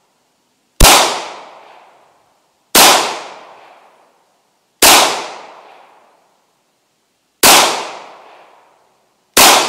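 Semi-automatic pistol fired five times at a slow, deliberate pace, roughly two seconds between shots, each loud crack trailing off over about a second.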